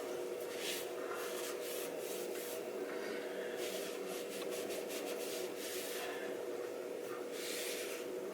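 Short rubbing strokes against a vegetable peeler's steel blade, each a brief hiss, coming about once or twice a second at an uneven pace.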